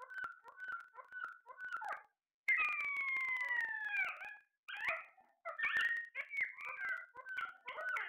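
Caged Alexandrine parakeets calling: short repeated calls at first, then a long falling whistle about two and a half seconds in, followed by a run of quick chattering calls.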